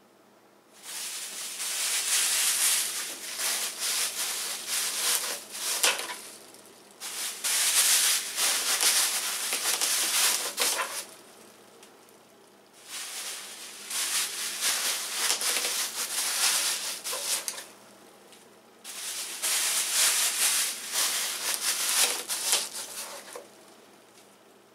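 Plastic grocery bags crinkling and rustling as they are stuffed into a stainless steel Simplehuman wall-mount bag dispenser, in four bouts of several seconds each with short pauses between.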